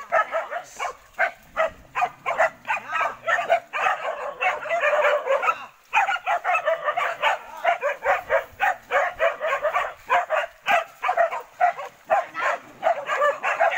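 A pack of hunting dogs barking and yelping rapidly and without letup while they hold a wild boar at bay, with a brief break a little before the middle.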